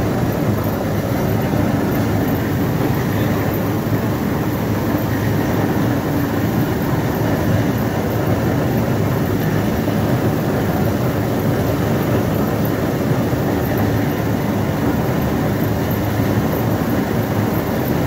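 Industrial brush-roller potato washing machine running, its motor and rotating soft brush rollers tumbling potatoes along, a steady mechanical hum and rumble.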